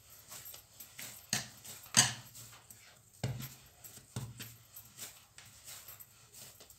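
Hands pressing and slapping a crumbly dough into a ball on a wooden worktop: irregular soft thumps and taps, the sharpest about a second and a half and two seconds in.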